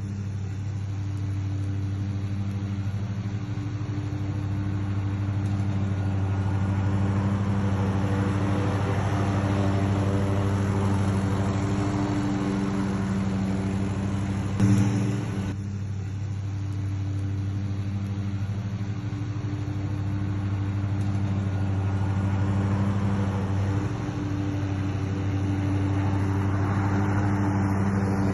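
Husqvarna Z254F zero-turn riding mower running at a steady engine pitch while mowing. It grows louder and fainter as it moves about, with a brief louder burst about halfway through.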